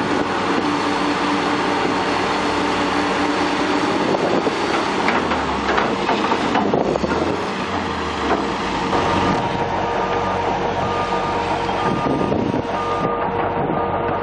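Heavy crawler machinery running hard in mud: the John Deere 750J dozer's turbocharged diesel and its steel tracks clanking and squealing, with the excavator working alongside. From about nine seconds in, a backup alarm beeps at a steady rate.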